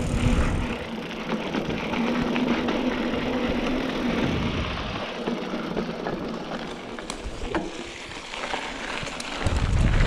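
Trek Roscoe 8 hardtail mountain bike on 27.5-plus tyres rolling down a dirt trail: tyres running over dirt and roots, with many short knocks and rattles over bumps and a steady hum through the first few seconds. Wind rumbles on the microphone near the end.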